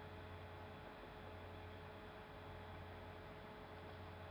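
Faint steady electrical hum with a thin higher tone and background hiss: the room tone and noise floor of the recording, with no distinct event.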